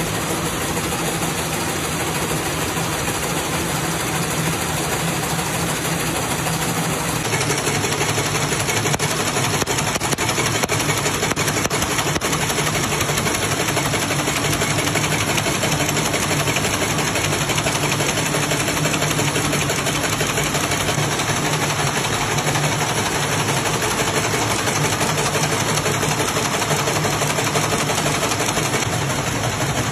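Wire nail-making machine running steadily, a dense, even mechanical noise that changes slightly about seven seconds in.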